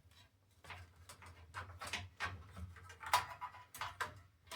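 Irregular plastic clicks, knocks and rustles of a small-form-factor desktop computer case being handled and its plastic front panel fitted back on, the loudest knock about three seconds in.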